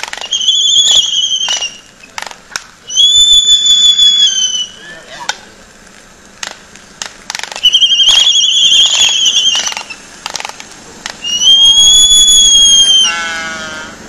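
Laysan albatrosses in a courtship dance: four long, high, steady whistled calls of one and a half to two seconds each, with sharp bill clacks between them, and a lower call falling in pitch near the end as a bird points its bill skyward.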